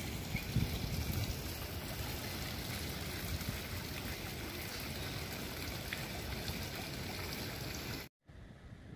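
Tiered stone garden fountain splashing into its basin: a steady rush of falling water that stops abruptly about eight seconds in.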